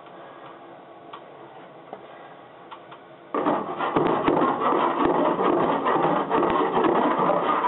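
A hand body file scraping over body solder, starting abruptly about three seconds in and continuing as a loud, rough, steady rasping; before that only a faint ticking.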